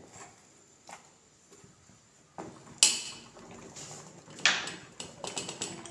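A metal spoon clinking against a steel bowl of melting chocolate set over a pan of hot water. There are two sharp clinks, about three seconds and four and a half seconds in, followed by lighter clicks.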